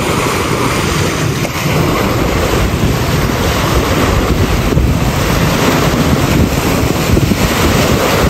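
Small waves washing and breaking on a sandy shore, with gusty wind buffeting the microphone.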